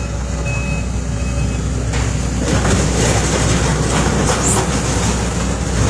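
Heavy demolition machinery running with a steady low rumble and a repeated short beeping in the first second and a half; about two seconds in, loud crunching and crackling of breaking building material begins and carries on.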